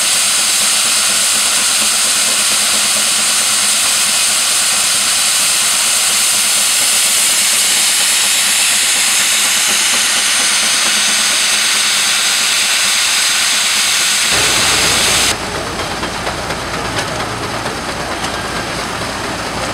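Advance Rumely steam traction engine venting steam: a loud, steady hiss for about fifteen seconds, then it stops and lower, duller machinery running is heard.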